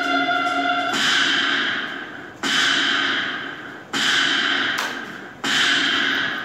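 Gunshot sound effects on a performance soundtrack played over loudspeakers. The music holds a chord for about a second, then four loud reports follow, about a second and a half apart, each dying away slowly.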